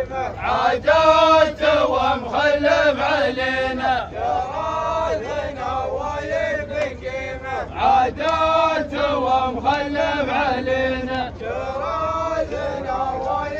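A group of men chanting a traditional Emirati song together in phrases of a second or two, the song of a line dance with canes.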